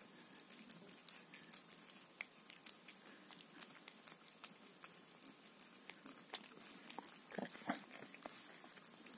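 A domestic cat eating soft poultry pâté, licking and chewing with a quick, irregular run of small smacking clicks.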